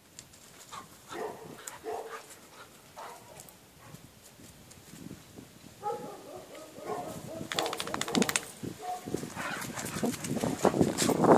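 A Staffordshire terrier and a bull terrier puppy at play, making short, scattered dog sounds. Near the end there is louder scuffling and rustling.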